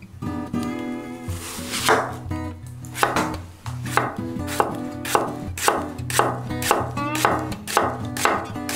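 Kitchen knife slicing an onion thinly on an end-grain wooden cutting board, the blade striking the board about twice a second in an even rhythm after a first cut about two seconds in.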